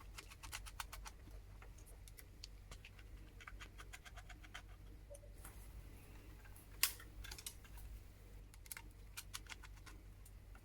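Faint, irregular small clicks and ticks of a screwdriver working the side screws out of a laptop hard drive, with one louder click about seven seconds in.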